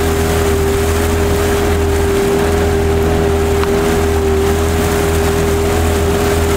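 Motorboat engine running steadily at constant speed, with a strong, unchanging drone and a low hum underneath.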